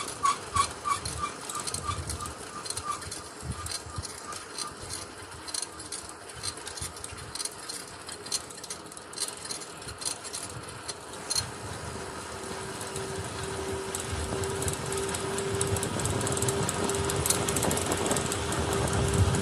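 Bicycle riding along a paved road: wind and road noise with scattered small clicks and rattles. A short run of even high pips sounds in the first three seconds, and about twelve seconds in a steady hum joins and the noise slowly grows louder.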